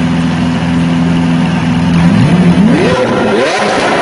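Lamborghini Aventador's V12 engine idling steadily, then revved hard from about two seconds in, climbing in pitch in quick successive pulls.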